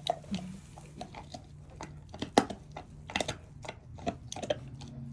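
A Great Pyrenees dog gnawing on a bone: irregular crunching and cracking clicks, the loudest about halfway through.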